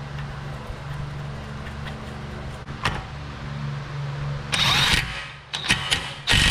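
DeWalt cordless power tool spinning a socket onto a new rear axle nut. It runs in a short loud burst about four and a half seconds in, then starts again, steady and whining, near the end, over a steady low hum.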